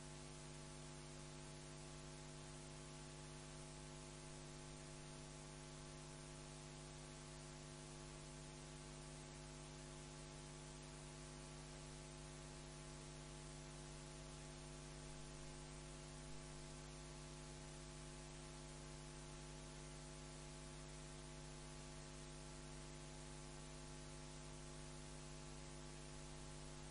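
Steady electrical mains hum with a faint hiss: the idle noise of the recording or sound system, near silence with no speech.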